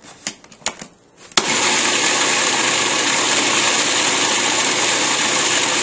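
Cuisinart Pro Classic food processor: a few plastic clicks as the lid is fitted, then about a second and a half in the motor switches on with a sharp click and runs steadily, puréeing a thick roasted eggplant and red pepper dip.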